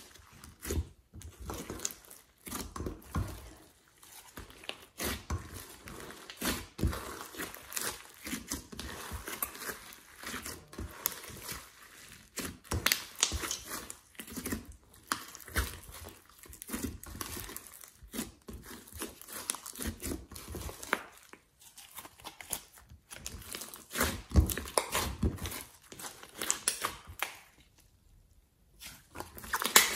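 Glossy slime being squished and kneaded by hand, giving irregular sticky crackles and pops as it is pressed and pulled. The crackling drops away for a second or two near the end as the slime is lifted and stretched.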